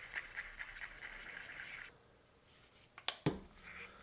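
Wooden stir stick stirring paint in a small plastic mixing cup: a soft, rhythmic scraping at about five strokes a second that stops about two seconds in. A couple of light taps follow a second later.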